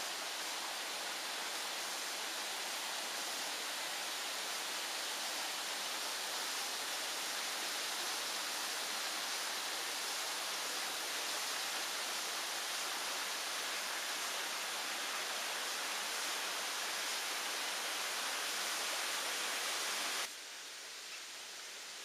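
Mountain river running over rocks: a steady rushing hiss of water that falls noticeably quieter near the end.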